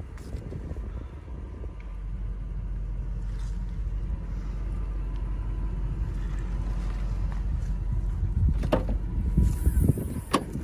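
2001 Toyota Land Cruiser's 4.7-litre V8 idling with a steady low rumble at the rear of the truck, growing a little louder a couple of seconds in. Near the end come two sharp knocks as the rear hatch is opened.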